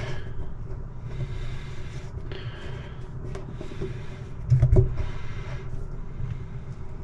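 Handling noises as washing-machine parts are fitted back in place: light clicks and rubbing, with one louder dull knock about four and a half seconds in.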